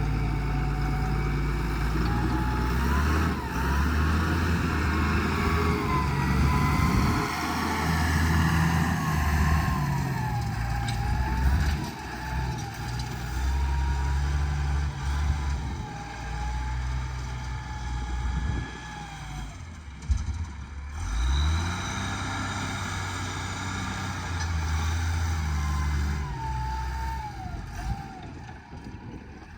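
John Deere 444 wheel loader's diesel engine working, its speed rising and falling as it lifts and moves logs, with a high whine that wavers in pitch. A sharp knock comes about two-thirds of the way through.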